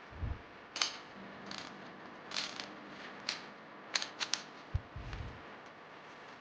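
Sharp metallic clicks, irregularly spaced with a quick run of three about four seconds in, and a few dull low thumps: the Rossi 708s air revolver's mechanism being handled.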